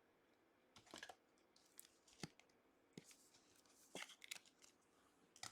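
Faint, scattered clicks and rustles of trading cards and foil pack wrappers being handled, about half a dozen small ticks spread over a few seconds against near silence.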